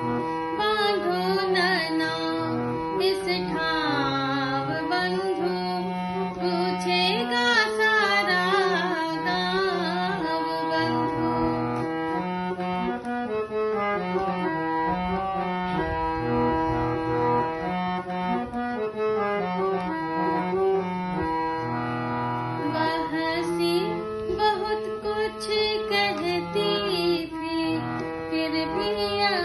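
A woman singing a Hindi song to her own harmonium accompaniment, the harmonium holding steady chords beneath her voice.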